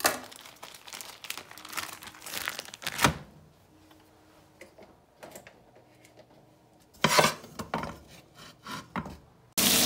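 Rubbing and crinkling handling noises with a sharp knock about three seconds in. Near the end, bacon strips hit a hot frying pan and start a steady sizzle.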